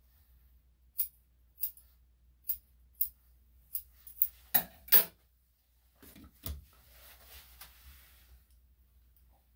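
Steel grooming scissors snipping the hair around a small dog's paw, about half a dozen short sharp snips. About five seconds in come two louder clacks, followed by a dull bump and faint handling noise.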